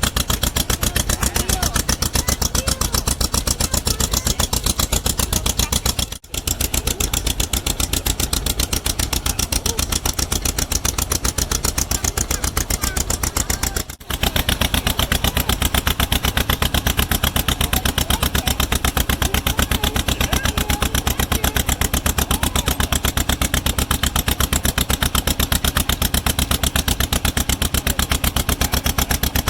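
An engine running steadily with a fast, even chugging pulse, cut off briefly twice.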